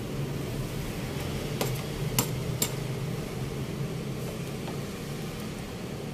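A spoon scraping and tapping on a plastic tray as glutinous rice balls are pushed off into a wok of coconut milk, with three sharp taps about two seconds in, over a steady low hum.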